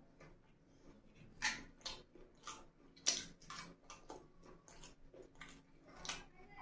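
Close-up chewing of saucy fried chicken (chicken manchurian), with wet mouth smacks and clicks coming irregularly, about one to two a second.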